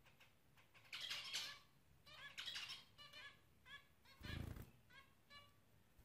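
Caged zebra finches giving their short, nasal beeping calls, about eight in irregular succession. A brief thump comes about four seconds in.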